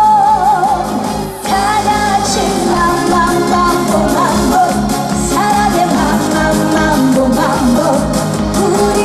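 Live trot song: a female singer over band backing music, holding a note with vibrato that ends about a second in, then a short break before the music and singing carry on.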